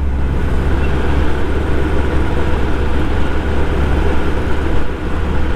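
Kawasaki Ninja ZX-10R's inline-four engine running steadily at low riding speed, under a steady rush of wind and road noise.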